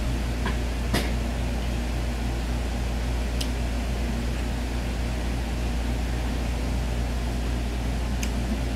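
Steady low mechanical hum of a running machine, with a few faint clicks: one about a second in, one past three seconds, and one near the end.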